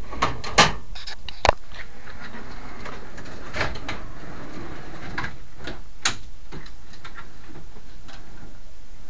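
Aluminium checker-plate drawer being pulled out on its heavy slides: a few sharp clicks and knocks from the drawer and its frame, with a light rolling, rustling slide noise between them.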